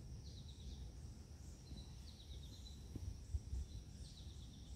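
Faint birds chirping: a few short runs of quick high chirps over low outdoor background noise and a steady faint high-pitched hum, with one soft knock about three seconds in.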